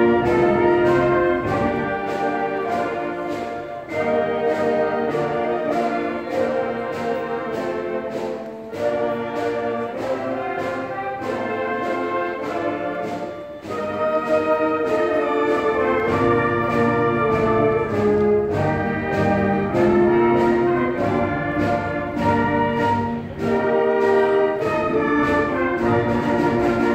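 Orchestral music with prominent brass, played as a graduation processional while the seniors walk in.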